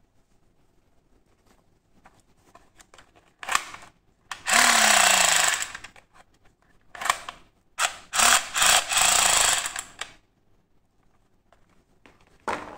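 Battery-powered toy MP5 submachine gun firing its electronic shooting effect: a loud buzzing rattle with a falling tone, about a second long, then a second burst of about two seconds, with plastic clicks of the trigger and handling between them and near the end.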